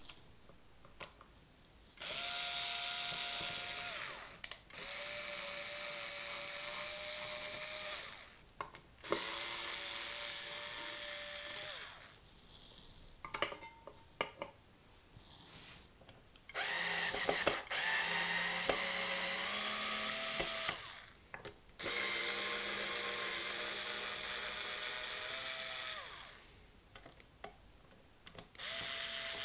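Bosch cordless electric screwdriver backing out screws from a guitar body's plates and pickups. It runs in about five separate bursts of a few seconds each, with a steady whine, and there are a few short clicks of handling between two of the bursts.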